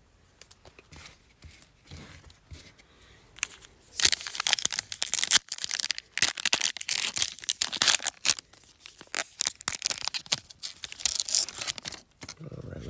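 A basketball trading-card pack wrapper being torn open and handled. Soft rustling for the first few seconds, then loud, dense tearing and crackling from about four seconds in until shortly before the end.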